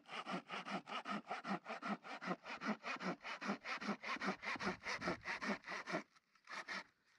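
Hand saw cutting through a wooden board in quick back-and-forth strokes, stopping about six seconds in, with a few last short strokes after.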